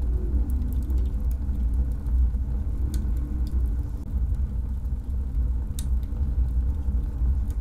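A steady deep rumble, with a few sharp crackles from a wood-burning stove fire about three and six seconds in.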